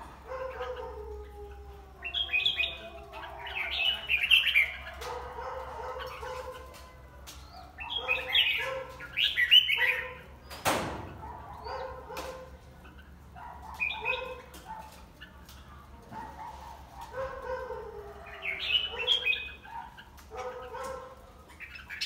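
Caged red-whiskered bulbul singing its contest song: short, bright warbled phrases repeated every second or two, with a sharp knock about halfway through.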